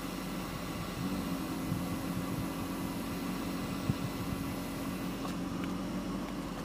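Handheld electric hair dryer blowing steadily, with a low motor hum that stops shortly before the end. A single light knock about four seconds in.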